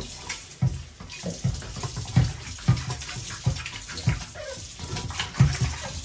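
Tap water running into a stainless steel sink while a heavy non-stick grill pan is scrubbed under it with a soft sponge. Irregular dull thumps, about eight of them, sound over the steady splashing.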